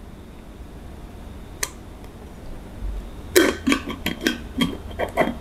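Green plastic screw lid being twisted onto a glass drinking jar: one click, then a quick run of clicks and scrapes from about three seconds in as the lid turns on the threads.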